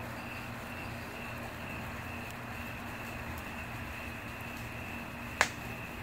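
Wood fire burning in an outdoor fireplace, faint crackles over a steady low hum and hiss, with one sharp loud pop near the end.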